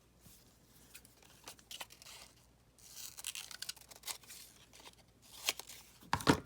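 Scrap paper being handled: rustling and crinkling with scattered light clicks, louder near the end.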